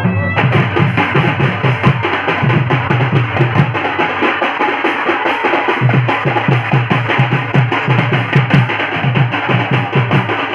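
Live folk percussion for a danda nacha dance: double-headed barrel drums (dhol) beaten in a fast, driving rhythm, with a dense higher layer of sound above them. The deep drum strokes thin out briefly in the middle, then return.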